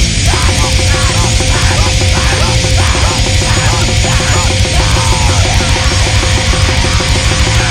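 Loud, fast, heavily distorted fastcore/powerviolence music with a rapid, driving low end and a steady held tone running through it.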